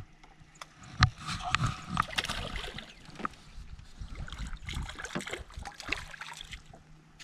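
Water splashing and sloshing with scattered sharp knocks, as a hooked white bass is handled and flops at the water's edge.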